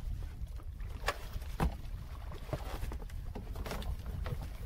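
Wind rumbling on the microphone and water slapping against a boat's hull, with a few short, sharp knocks and clicks scattered through.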